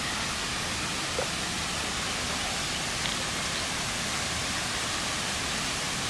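Steady rushing of creek water running over rocks below a waterfall, an even hiss without a break.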